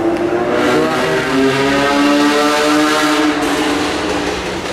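A motor vehicle engine running at a steady pitch. The pitch settles slightly lower about a second and a half in, and the sound eases off near the end.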